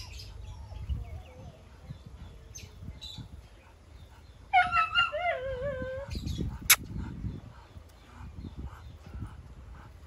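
A dog gives one long, wavering whine about four and a half seconds in, lasting about a second and a half, followed by a single sharp click; a low rumble runs underneath.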